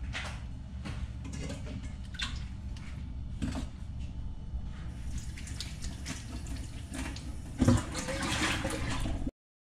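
Water boiling under a steamer rack in a stainless pot, a steady low bubbling rumble with fine crackle. A short knock sounds near the end.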